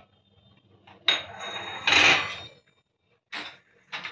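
Metal spoon scraping and clinking on a flat tawa, stirring cashews, almonds and pistachios as they roast in ghee. There is one longer scrape of about a second and a half, then two short clinks near the end.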